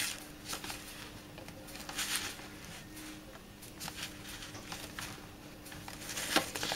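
Paper seed packets rustling and rubbing against each other as they are flipped through by hand in a plastic tub, in irregular bursts, with a sharper tap or knock about six seconds in.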